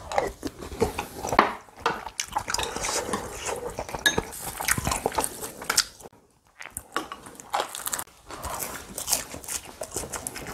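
Close-up eating sounds: chewing, with chopsticks and a spoon clicking and scraping against ceramic bowls and plates. There is a short lull about six seconds in.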